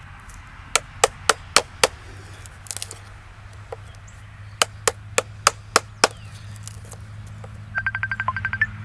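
Wooden log being carved with mallet and chisel: two runs of sharp knocks, about three or four a second, with a quick rattle of clicks near the end.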